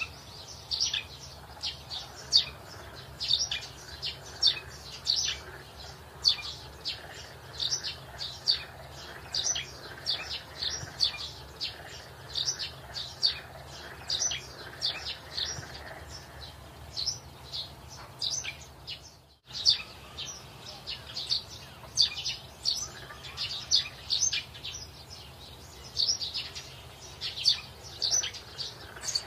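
Birds chirping steadily, short high calls coming a few times a second. The chirping cuts out for a moment about two-thirds of the way through, then carries on.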